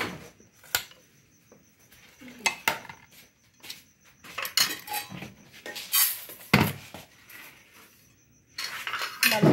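A metal spoon scraping and clinking against a metal pot and a glass plate as fried pork ribs are spooned out, in a series of irregular clinks and scrapes with a louder knock about two-thirds of the way through.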